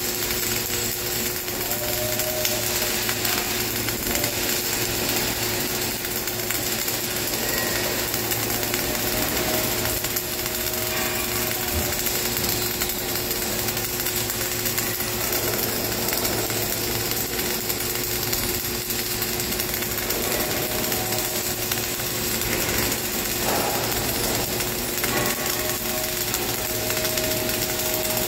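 Flux-cored arc welding on a vertical butt joint: the arc crackling steadily and without a break as the wire feeds, with a steady hum underneath.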